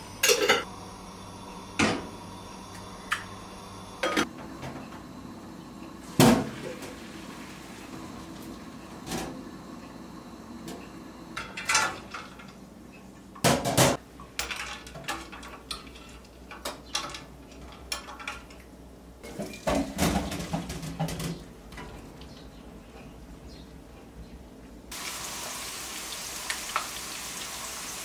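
Kitchen clatter: pots, pans and utensils knocking and clinking a dozen or so times. Near the end a steady sizzle of potatoes frying in oil in a pan starts up.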